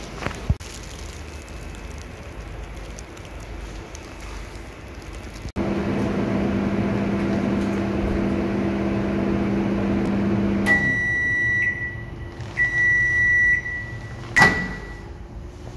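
Microwave oven running with a steady low hum that starts about five seconds in and stops a few seconds later. Its two long high beeps follow, signalling that the heating cycle is finished. A single sharp clack comes near the end.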